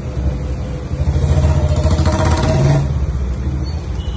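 A motor vehicle engine running close by, with a low rumble that swells from about a second in and eases off near three seconds, as a vehicle passes.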